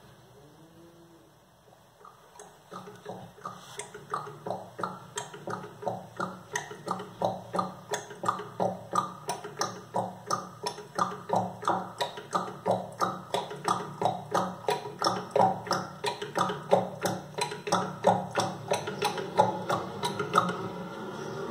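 Donkey's hooves clip-clopping at a walk: evenly spaced hollow knocks, about three a second, fading in after a couple of seconds and stopping near the end.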